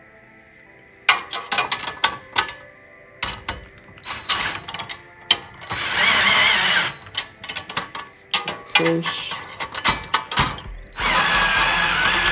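DeWalt cordless drill driving a bracket bolt in two short runs, around the middle and near the end, while a box wrench holds the nut. Between the runs, sharp metallic clicks and rattles from the wrench and bolts.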